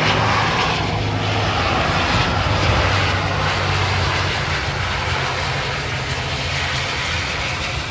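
Passenger plane's engines running steadily, a loud even hiss over a low hum.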